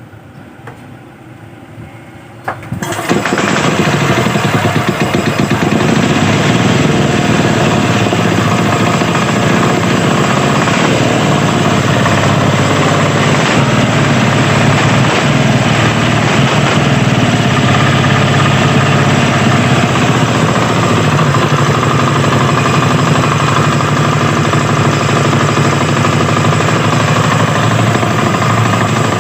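Falcon 12 HP air-cooled engine running steadily and loudly after coming in suddenly about three seconds in.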